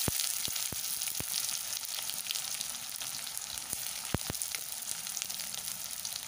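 Chopped onion sizzling in hot mustard oil in a kadai, just after going in: the sizzle is loud at first and eases a little. A few sharp clicks cut through it, the loudest about four seconds in.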